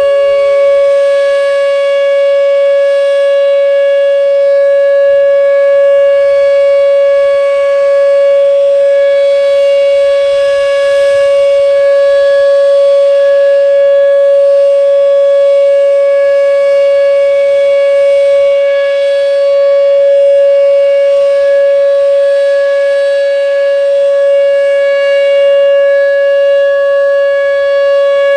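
Whelen WPS-2807 electronic outdoor warning siren sounding its steady Alert tone at 560 Hz: one loud, unbroken pitch with no rise or fall, its loudness wavering slightly. This is the steady signal used for tornado warnings.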